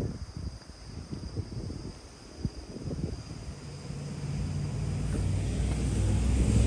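Handling knocks and bumps, followed by the low rumble of a motor vehicle that grows steadily louder over the last few seconds. A faint steady insect chirring runs high underneath.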